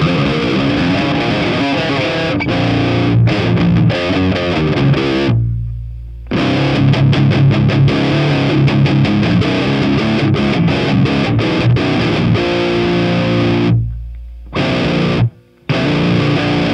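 ESP LTD SC-607B seven-string baritone electric guitar played with heavy distortion through a Kemper profile of a Marshall amp: fast improvised metal riffing with choppy, stop-start chugs on the low strings. Twice the playing halts on a single low note that rings out and is then cut off abruptly, and there is a brief silence near the end.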